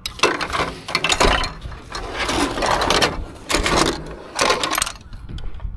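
Pieces of scrap metal (a metal tray, rods and a clamp) clinking and rattling against each other as they are gathered up by hand, in a run of irregular clanks that dies down about five seconds in.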